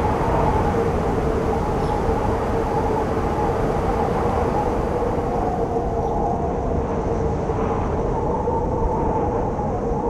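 Strong blizzard wind blowing: a constant rush of noise with a steady low whistle and a higher whistle that wavers in pitch.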